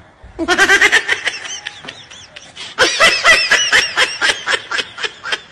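Loud laughter in quick pulses, in two bouts, the second starting near the middle.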